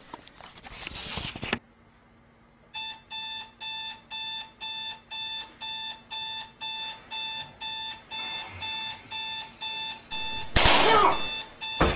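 Electronic alarm clock beeping in rapid even pulses, about two or three beeps a second, starting about three seconds in. Rustling for the first second and a half, and a loud sudden noise cuts across the beeping about ten and a half seconds in.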